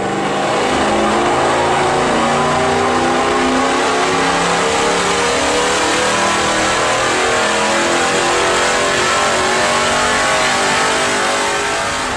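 Jeep Grand Cherokee SRT8's 6.1-litre Hemi V8 running hard under load on a chassis dynamometer, a loud, steady engine note that builds over the first second.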